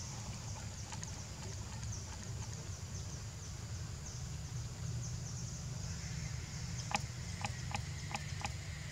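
Outdoor ambience: a steady high buzz with fast pulses and a low rumble underneath. Near the end comes a quick run of about five sharp clicks, the first the loudest.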